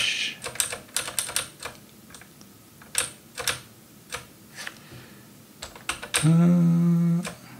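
Computer keyboard keys, mainly the arrow keys, tapped one at a time at an uneven pace while stepping down a text menu. About six seconds in, a man's voice gives one drawn-out hum at a steady pitch for about a second.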